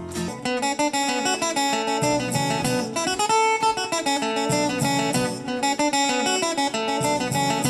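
Acoustic-electric guitar playing an instrumental passage of quick, rapidly changing picked notes.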